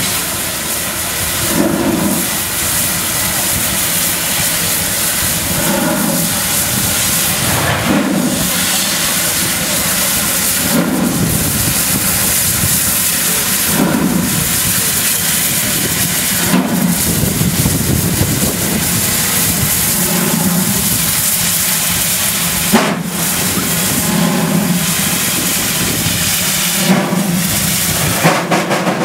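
South African Railways Class 15CA steam locomotive starting a heavy train up a grade. Slow, heavy exhaust beats come every two to three seconds over a steady loud hiss of escaping steam, and there is one sharp knock about three-quarters of the way through. The slow start is because the locomotive's sanders are not working, so the driver must keep it from slipping.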